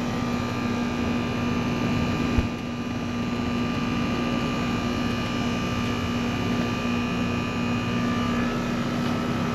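Outdoor air-conditioning condenser running: compressor and condenser fan motor with a steady hum and whoosh. The fan is running on a freshly replaced inverter board, which has not failed on start-up. A brief knock about two seconds in.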